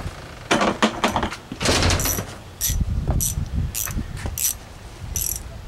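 Quarter-inch socket ratchet being clicked in short rasping bursts, about one every half to three-quarters of a second, with footsteps on concrete.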